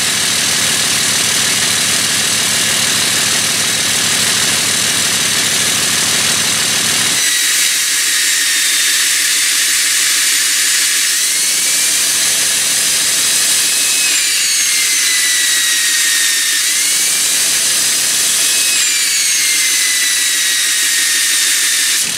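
Cummins 5.9 L inline-six turbo diesel running, heard close at the tailpipe, with its HE351VE variable-vane turbo. About seven seconds in the deep low rumble thins out. After that a high turbo whistle rises and falls several times.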